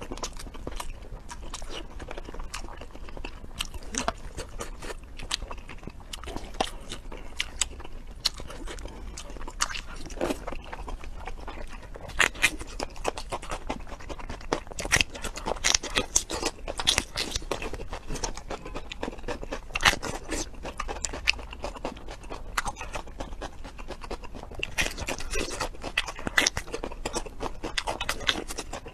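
Close-miked eating: crisp, irregular crunching and chewing, much of it bites into a whole raw red bell pepper, with denser runs of crunches partway through and again near the end.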